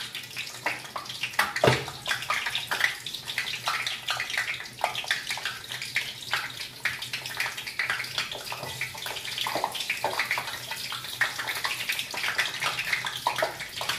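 Pork rinds (chicharon) popping and crackling in hot oil in a lidded wok during their second frying: a dense, irregular run of sharp pops over a steady sizzle, with one louder crack about two seconds in. The popping shows the rinds are still puffing; once it dies away they are done.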